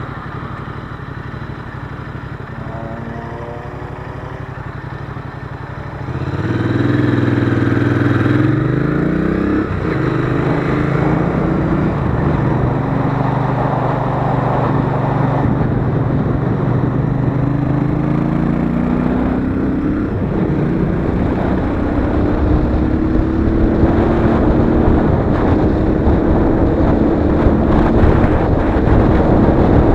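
Royal Enfield Interceptor 650's 648 cc parallel-twin engine running quietly, then about six seconds in opening up and pulling away. The revs rise through gear changes, then it settles into a steady run at speed.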